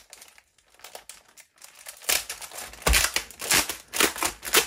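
Crinkly packaging of a LEGO Ninjago surprise pack being handled and opened by hand: faint rustling at first, then loud, irregular bursts of crinkling from about two seconds in.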